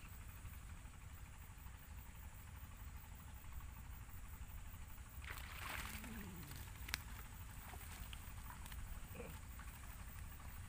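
Steady low wind rumble on the microphone. About halfway through comes a brief rustle as a man wading at the water's edge reaches down into the tall grass, followed by a single sharp click.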